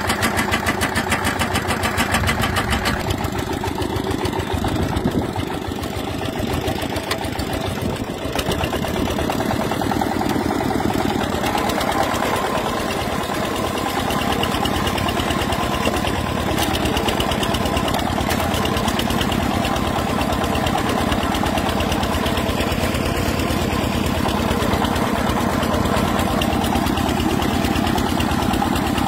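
Small engine of a homemade riding plow running steadily with a rapid, even beat while ploughing a flooded rice paddy. It is a little quieter a few seconds in.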